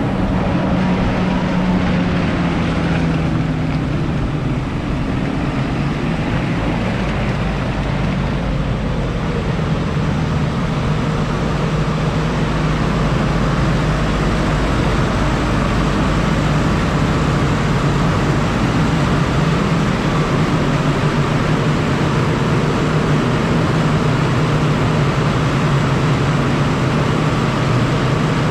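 Tractor engine running steadily under load, its pitch dipping slightly a few seconds in and then holding.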